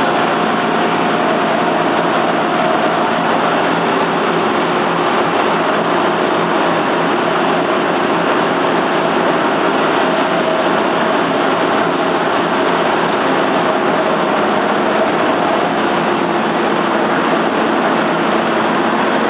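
Large Toyoda CNC lathe running, a loud steady mechanical noise with faint steady whines whose pitch shifts a few seconds in.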